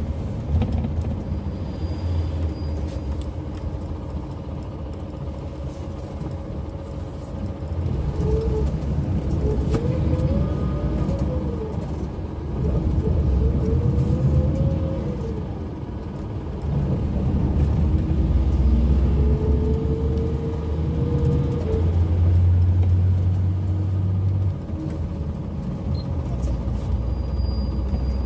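Seoul city bus running on its route: a low engine rumble under a drivetrain whine that rises and falls twice as the bus speeds up and slows. Later the whine holds steady with a heavy low hum, which drops off suddenly a few seconds before the end.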